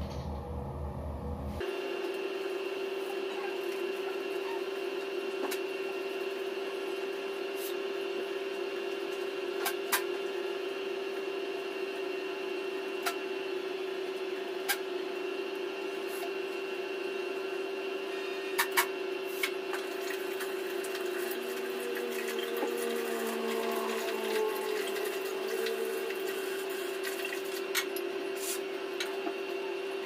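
Water running steadily in a small tiled bathroom, with a steady hum in it and scattered sharp clicks as the shower heater's clogged inlet filter screen is handled and cleaned.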